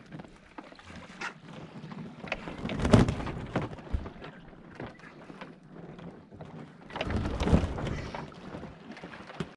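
Sailboat under way at sea: wind on the microphone and water washing along the hull. There are two louder rushes, about three seconds in and again around seven and a half seconds.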